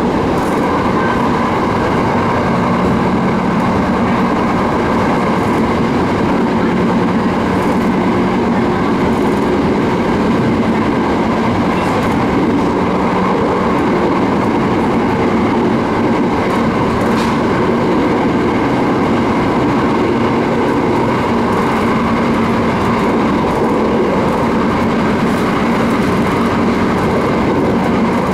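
JR East 701 series electric train running at speed, heard from inside the passenger car: a steady rumble of wheels on rail with a level hum. A couple of faint clicks come through about twelve and seventeen seconds in.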